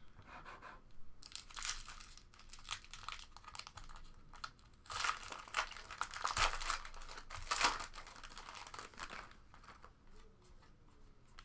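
Card-pack wrappers crinkling and tearing as packs are opened and the cards handled, in uneven bursts that are busiest through the middle and die down near the end.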